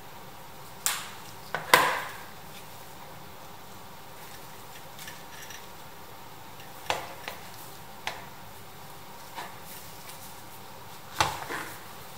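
Pressed-steel Tonka toy tractor parts being taken apart and set down on a cutting mat, with the wheels coming off the body. Scattered knocks and clicks, loudest a little under two seconds in, with more around seven to eight seconds and again near the end.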